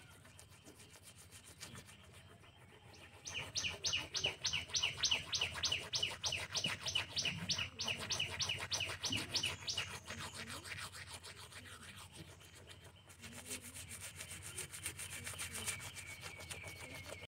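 Toothbrush scrubbing teeth in quick back-and-forth strokes, about four a second, strongest for a few seconds in the middle, then softer.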